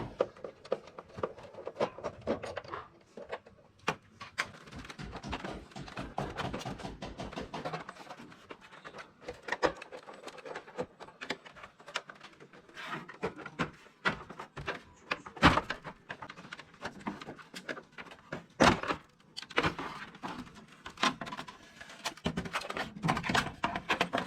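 Irregular clicks and knocks of objects being handled, with a few louder knocks in the second half.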